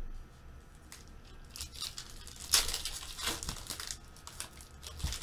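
Foil wrappers of Panini Prizm football card packs crinkling and tearing as they are handled and ripped open by hand, in a string of short crackles, the loudest about two and a half seconds in.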